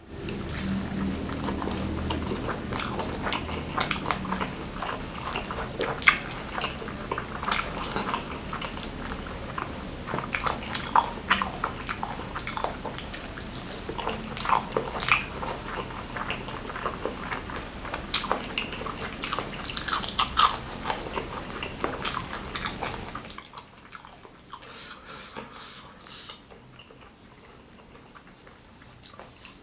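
Close-miked eating: chewing and biting with many small, irregular wet clicks. It grows much quieter after about 23 seconds.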